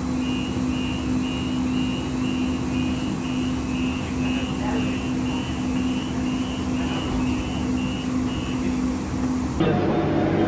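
Train door-closing warning: an even series of short high beeps, about two a second, for several seconds over a steady low hum from the train. Near the end it cuts to a different, busier train sound.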